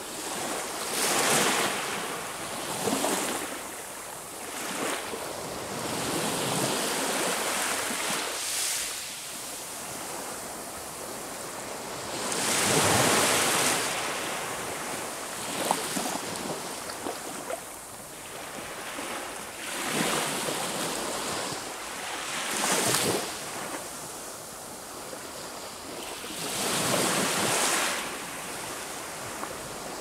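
Sea waves breaking on the shore: a steady wash that swells into a fresh surge every few seconds, the biggest about halfway through. A single sharp click comes just after the middle.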